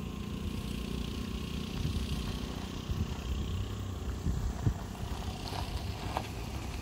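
A motor vehicle engine running steadily with a low rumble, with a few light knocks about halfway through.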